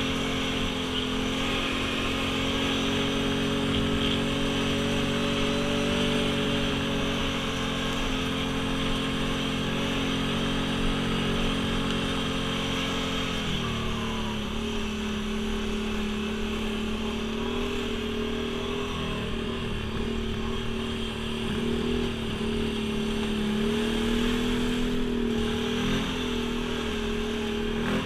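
ATV engine running under way on a dirt trail, holding a steady note, then settling to a lower pitch about halfway through and rising and falling a little after that as the throttle changes.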